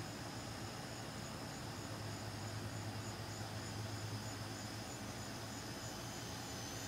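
Insects chirping in a fast, even, high-pitched pulse, over a steady low hum.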